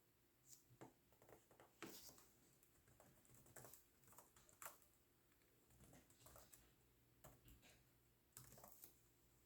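Faint typing on a laptop keyboard: irregular keystrokes in short spurts with brief pauses between them.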